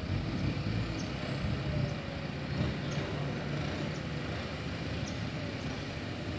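Distant diesel engines running steadily, a low rumble with a faintly wavering pitch: a Kubota tractor driving down off a truck's trailer.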